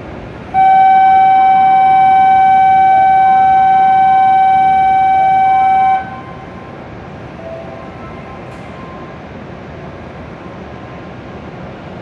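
Platform departure signal: one steady, loud electronic tone that starts about half a second in and cuts off abruptly after about five and a half seconds, ahead of a Shinkansen's departure. After it, only the steady hum of the station and the waiting train remains.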